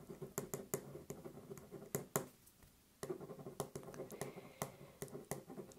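Writing on paper: a run of scratchy strokes and small ticks, with a short pause a little before halfway through.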